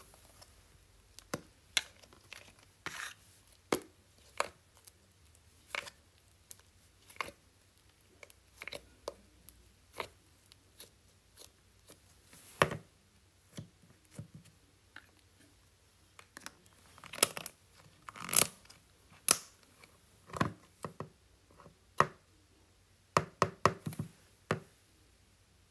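Soft, fluffy slime being squeezed and poked by hand, giving irregular sticky pops and crackles, a few much sharper than the rest. A quick run of clicks comes near the end.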